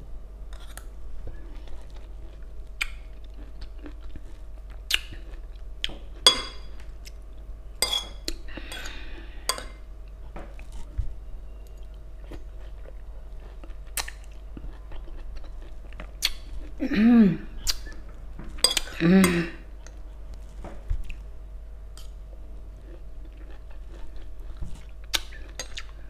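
Close-up sounds of a person eating pomelo mixed with red chili: chewing, with scattered sharp clicks of a metal spoon against a plate. Twice, about two-thirds of the way through, the eater makes a short voiced sound, the loudest moments.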